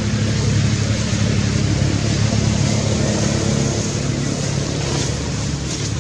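Loud, steady rushing noise with a low drone of a few steady tones underneath, like wind on the microphone over a running engine.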